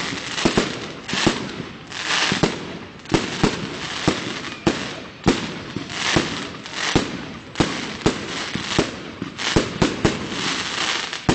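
Fireworks display: aerial shells bursting in an irregular string of sharp bangs, about two a second, over the hiss and crackle of the bursts.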